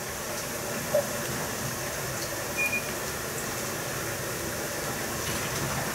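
Steady hiss of kitchen background noise, with a soft click about a second in and a short beep about two and a half seconds in.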